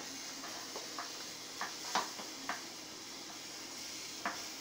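Beaten eggs sizzling softly in a frying pan while a utensil stirs and scrapes through them, with a few sharp clicks of the utensil against the pan, the loudest about two seconds in.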